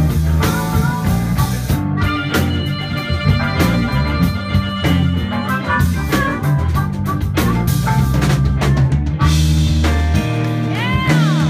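Live blues-rock band: harmonica played into a cupped handheld microphone over a drum kit with hard drum hits. Near the end, notes bend up and back down.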